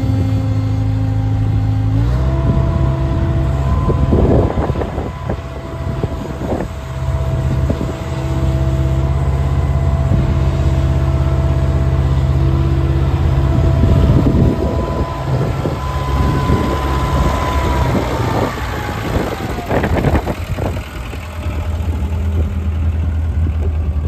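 Bobcat 743B skid steer's engine running as the machine drives and turns: the revs step up about two seconds in, hold steady with a whine over the engine note, and drop back near the end, with clanks and rattles from the machine along the way.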